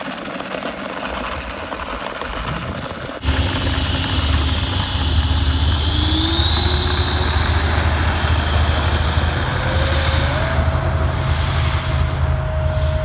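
Electric ducted fan of an E-flite F-15 Eagle 64mm RC jet whining, its pitch climbing steadily as the throttle comes up, then holding steady near the end. It starts abruptly about three seconds in, after some hiss, with a steady low rumble underneath.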